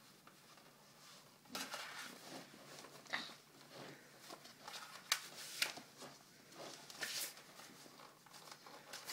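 Quiet rustling and a few short handling clicks as airsoft goggles and their strap are fiddled with and adjusted.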